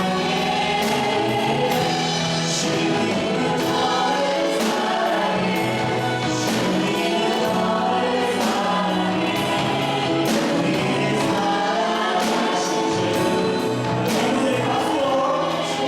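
Church praise team and congregation singing a worship song together, with a band accompanying on a steady beat about once a second.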